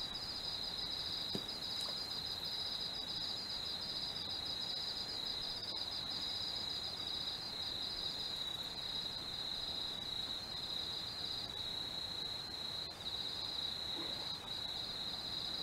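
Insects trilling without pause: a high, fast-pulsing chirr on two close, steady pitches over a faint background hiss.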